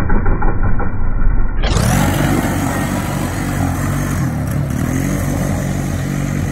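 ATV engine revving hard as the quad spins on loose dirt and gravel, then pulling away, the engine note a little lower and steadier after about two seconds as it drives off.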